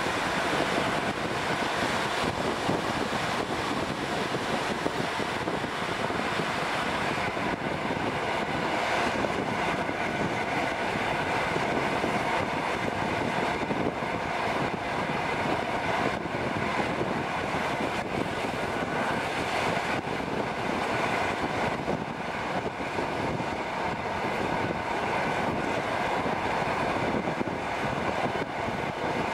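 Steady running noise of a passenger train at speed, heard through an open carriage window: wheels rolling on the rails mixed with the rush of air past the microphone.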